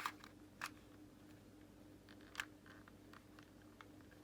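A few faint, sharp plastic clicks from prying at an Xbox One controller's shell clips: one at the start, one just after half a second, and one about two and a half seconds in, with near silence between.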